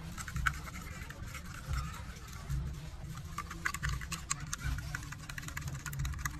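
A metal utensil stirring and beating a raw egg in a small glass bowl: soft scraping at first, then quick rapid clinks against the glass from about halfway in. A low steady rumble runs underneath.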